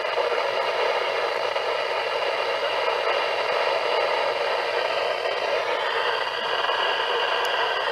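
Steady static hiss from a NOAA weather radio receiver between broadcast messages.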